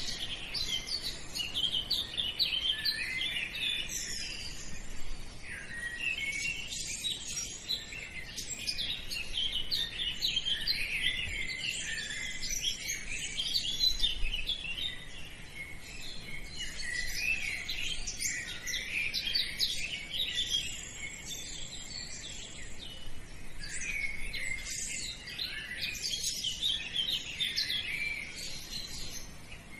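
A dense chorus of small birds chirping and singing without a pause.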